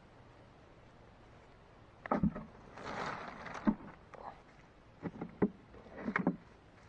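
Hands gathering uprooted weeds and loose soil, rustling, with short thuds and knocks as the clumps and a black tub are handled; it starts about two seconds in and comes in a few short bursts.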